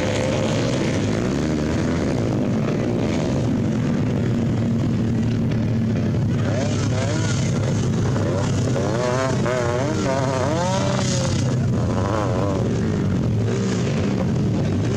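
Several motorcycle engines running and revving, their pitch rising and falling quickly through the middle as riders rev bikes that are stuck in loose dirt.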